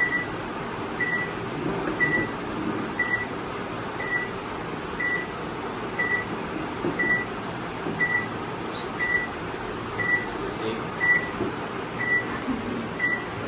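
Short electronic beep repeating evenly about once a second, a single high tone, over steady low background noise.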